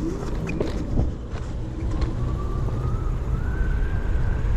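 Kaabo Mantis electric scooter's hub motors whining, the pitch rising steadily as the scooter picks up speed, over wind rumble on the microphone.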